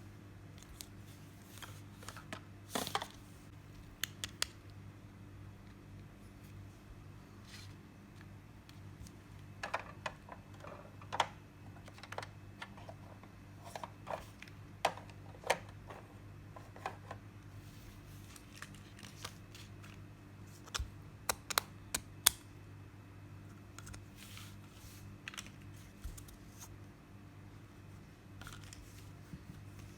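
Scattered light clicks and taps of small plastic toy pieces and their packaging being handled, coming in clusters with pauses between, over a steady low hum.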